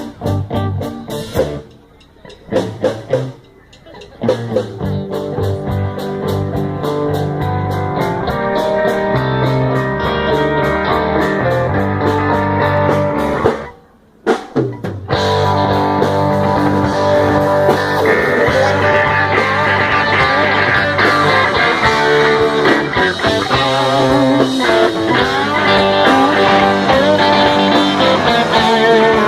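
Rock band playing an instrumental break, guitar to the fore over bass and drums. The music stops short a couple of times near the start and once about fourteen seconds in, then the full band comes back in.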